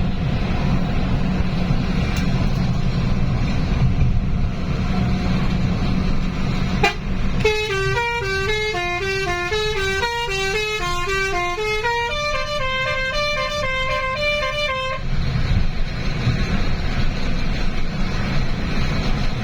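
A bus's Basuri telolet horn, a set of musical air horns, plays a quick tune of stepping notes. It starts about seven and a half seconds in and stops abruptly about seven seconds later. Underneath runs the steady rumble of the bus engine and tyres on the toll road.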